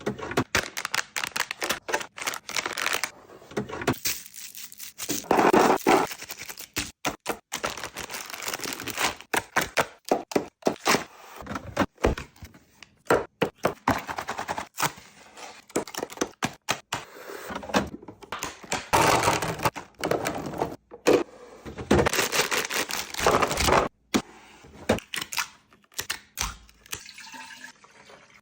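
Fridge restocking handling sounds: containers, packaging and food items being picked up, opened and set down in a quick run of clicks, taps and knocks, with a few longer stretches of rustling or pouring noise.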